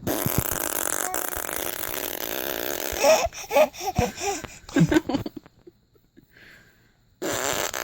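A woman blowing a long, loud raspberry with her mouth to make a fart noise, followed by a run of short squeaky pitched sounds. After a brief pause, another mouth fart noise starts near the end.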